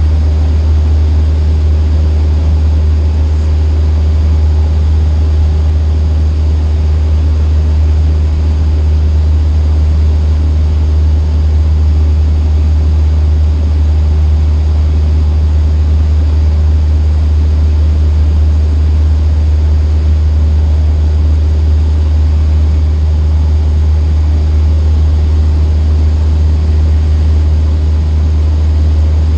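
Cessna 152's four-cylinder Lycoming O-235 engine and propeller droning steadily at constant power, heard from inside the cockpit.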